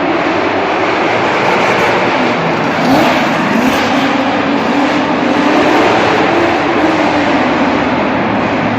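Drift car's engine revving hard with tyres squealing, echoing in an indoor hall; the engine pitch climbs about three seconds in, wavers, then eases off near the end.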